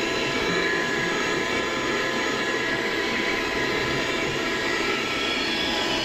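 Piranha PVC-4005 12-volt, 60-watt car hand vacuum running steadily: a motor whine over rushing air through the nozzle.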